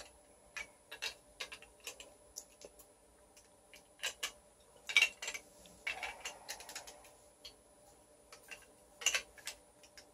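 Large plastic toy building bricks clicking and clacking as they are handled and pressed together, in irregular single clicks with a few louder clacks about five and nine seconds in.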